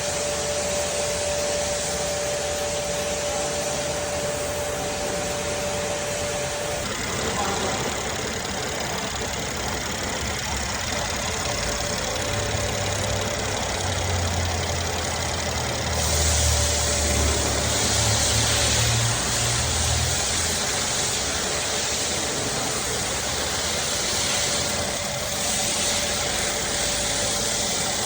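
Mercedes-Benz M276 V6 engine running steadily, getting a little louder with a deeper rumble about halfway through.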